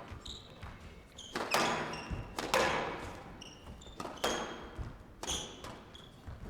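Squash rally: the ball cracking off rackets and the court walls, several sharp echoing smacks about a second apart, with short high squeaks of shoes on the court floor between them.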